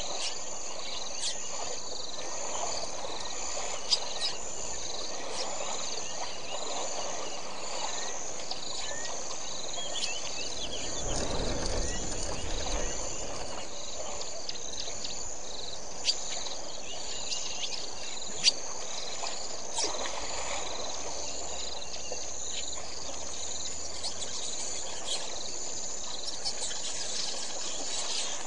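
Steady chorus of insects, a pulsing high buzz, over a low wash of noise that swells about eleven seconds in and fades a couple of seconds later, with a few sharp clicks.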